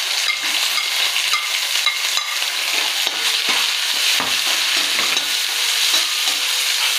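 Chopped shallots, green chillies and ginger sizzling in hot oil in a wide metal kadai, a steady crackling hiss, while a metal spoon scrapes and stirs them against the pan. It is the tempering stage, with mustard seeds already popped and curry leaves frying.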